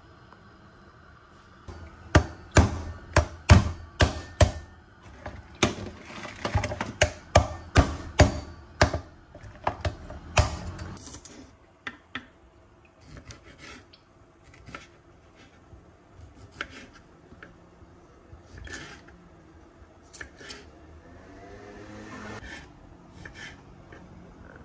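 Kitchen knife striking a wooden cutting board: a run of loud, sharp chops for about eight seconds, then lighter, scattered cuts through garlic cloves and cherry tomatoes.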